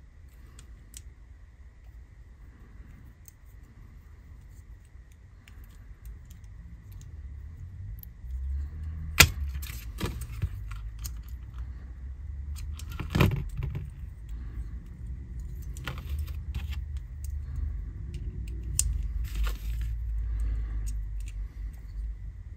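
Small plastic and metal parts clicking and rattling as the gears of a Hornby APT model locomotive's motor bogie are fitted back together by hand. Faint ticks at first, then sharper clicks, the loudest about nine and thirteen seconds in, over low rumbling handling noise from about eight seconds on.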